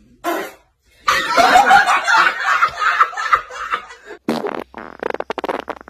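Air sputtering out of the stretched neck of a rubber balloon in a rapid, fart-like buzz, starting about four and a half seconds in. Before it, a few seconds of loud laughing.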